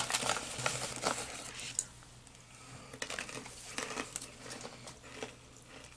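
Plastic snack pouch of roasted chickpeas crinkling as it is handled, busy for the first two seconds, then only faint scattered rustles and clicks.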